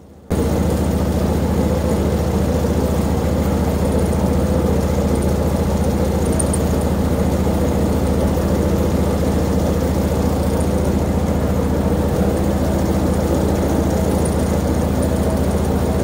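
Engine of a portable bandsaw sawmill running steadily, not cutting, while the log is rolled on the bed. It comes in abruptly just after the start.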